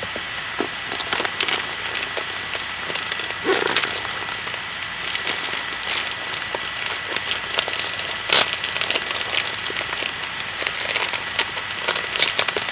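A shipping parcel being handled and opened by hand, its wrapping crinkling and crackling irregularly, with one sharp crack about eight seconds in. A faint steady high tone runs underneath.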